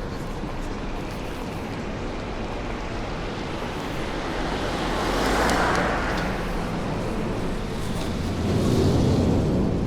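Steady wind and road noise, swelling about five seconds in as a vehicle passes, then again near the end.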